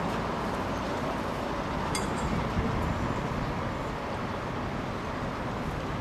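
Steady low rumbling background noise with no distinct pitch, and a single short click about two seconds in.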